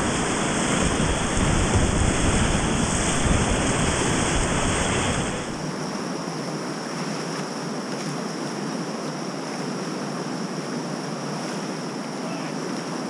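Whitewater rapids rushing close to the microphone, loud with a heavy low rumble of water buffeting it. About five seconds in the sound drops suddenly to a quieter, steady rush of the rapid.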